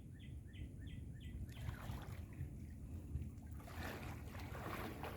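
Wind rumbling on the microphone over moving water, with the water splashing louder after about three and a half seconds. A bird chirps rapidly, about three times a second, during the first second and a half.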